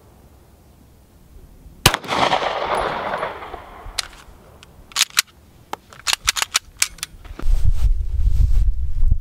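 A single 9 mm pistol shot from a SIG P228 about two seconds in, echoing for a second or so. It is followed by a scatter of short sharp clicks and knocks, and from about seven seconds by a steady low rumbling noise.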